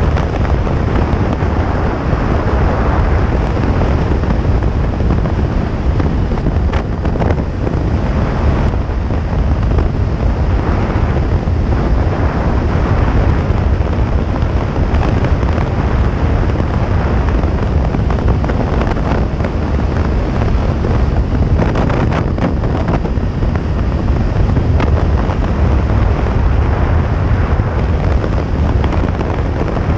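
Wind rushing loudly and steadily over the microphone of a sport motorcycle riding at road speed, with the motorcycle's running mixed in underneath.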